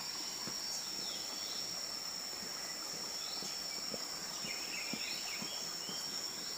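Steady, high-pitched insect chorus: an unbroken shrill tone of crickets or cicadas.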